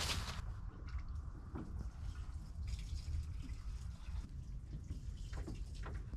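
Diesel sloshing in a plastic fuel can as it is carried and lifted up to a tractor's fuel tank: a few short sloshes over a steady low rumble.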